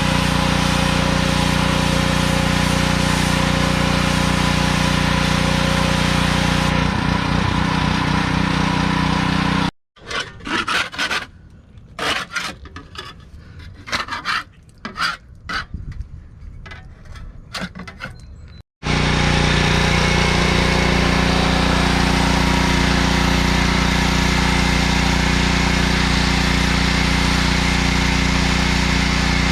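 Pressure washer running steadily while its jet blasts barnacles and slime off a boat hull. About ten seconds in it cuts abruptly to nine seconds of irregular scraping and rubbing strokes with sharp knocks, barnacles being scraped off, before the steady pressure washer returns.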